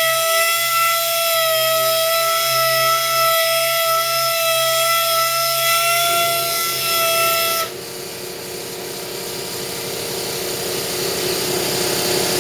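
Small pneumatic right-angle sander spinning a 4000-grit Abralon pad to wet-sand car-style paint, giving a steady high whine. About seven and a half seconds in the whine stops and a hiss that grows steadily louder takes over.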